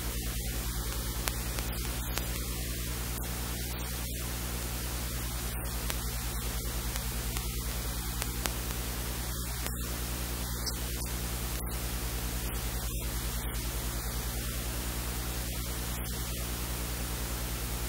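Steady static hiss with a low electrical mains hum underneath, unchanging throughout.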